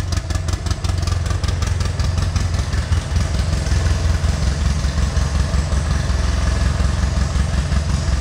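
2011 Polaris RZR 800 S side-by-side's twin-cylinder engine idling steadily.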